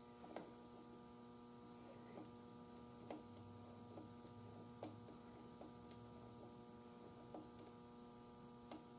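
Near silence: a faint, steady electrical mains hum, with a few light, irregular clicks scattered through it.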